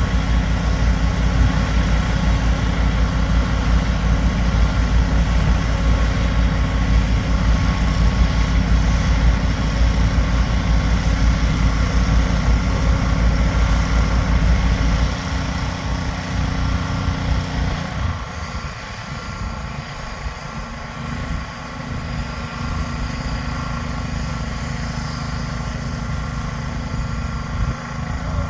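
Vehicle and road traffic noise with a heavy low rumble that drops off sharply about halfway through, leaving quieter, steadier traffic sound.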